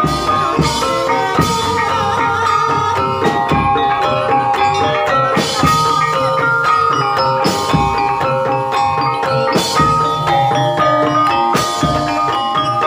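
Banyumasan gamelan music for an ebeg trance dance: mallet-struck keyed instruments play a busy, steady melody over drumming, with a heavier stroke about every two seconds.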